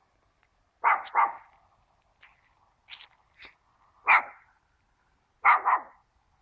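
A dog barking over and over, in single barks and quick pairs a second or two apart.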